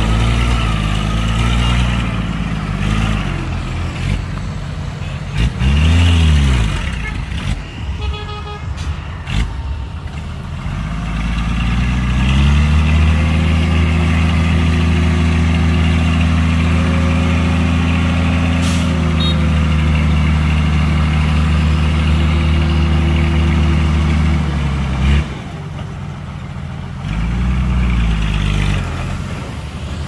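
Heavy diesel engines of construction machines working. An engine revs up and back down about six seconds in. From about twelve seconds an engine runs loud and steady for some thirteen seconds, then stops abruptly, and another rev rises and falls near the end.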